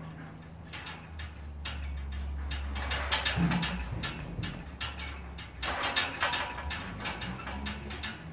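A ridden horse moving over sand arena footing: uneven hoofbeats with clicking tack, busiest about three seconds in and again around six seconds in, over a steady low hum.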